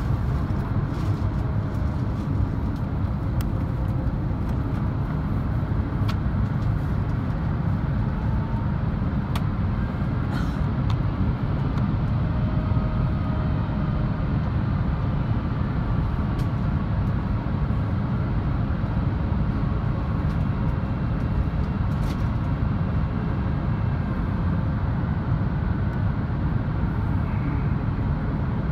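Steady low cabin roar of an Airbus A350-900 on approach, heard from a window seat: the Rolls-Royce Trent XWB engines and the airflow over the fuselage. A few faint clicks sound over it.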